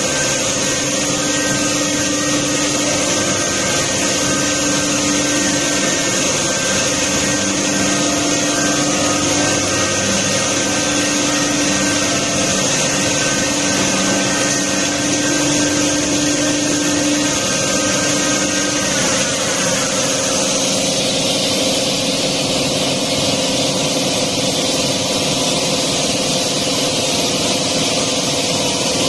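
Automatic PVC pipe threading machine running and cutting a plastic pipe: a steady mechanical hum with a high hiss. About twenty seconds in, a few tones slide downward and the sound changes to a brighter, steadier hiss.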